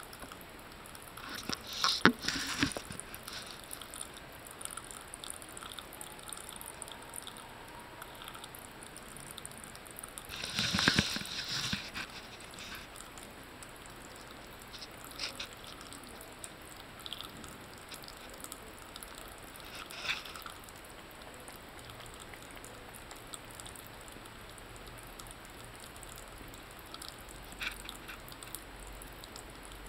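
Thin stream of water trickling from a bathroom sink tap into the basin, with a few splashes and knocks as a cat paws at and drinks from the running water; the loudest come about two seconds in and around eleven seconds.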